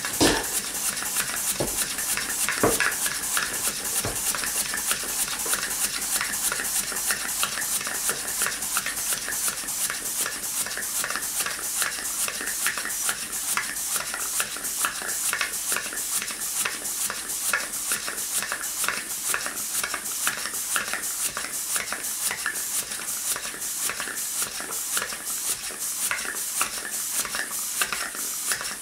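Homemade single-cylinder model steam engine running on live steam: a rapid, even chuffing from the cylinder over a steady hiss of steam. Two louder knocks sound in the first few seconds.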